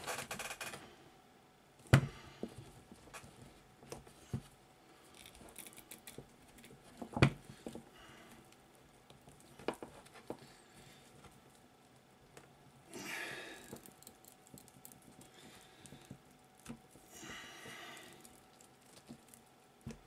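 Hand wire cutters biting through heavy 2-gauge battery cable: scattered sharp snaps as the jaws cut into the insulation and copper strands, with short scraping, rustling stretches as they are worked side to side. The loudest snaps come about 2 and 7 seconds in.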